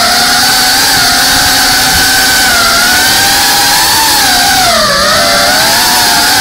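FPV quadcopter's electric motors and propellers whining, picked up by the camera on the drone. The pitch wavers with the throttle and dips briefly about five seconds in.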